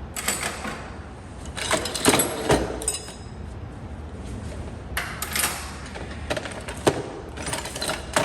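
Loose metal hand tools and parts clinking and clattering as they are picked up and set down, in several short bursts. The loudest burst comes about two seconds in, and there is a single sharp click near seven seconds.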